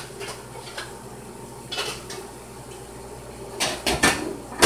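Kitchen dishes and utensils clattering off to the side: a few sharp clinks and knocks, one about two seconds in and a cluster near the end, the loudest right at the very end.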